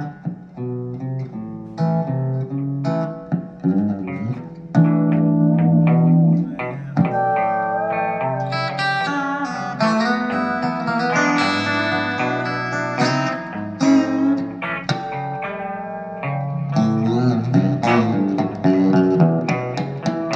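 Telecaster electric guitar played through a small amplifier: a continuous passage of plucked single-note lines and chords, with a few bent notes.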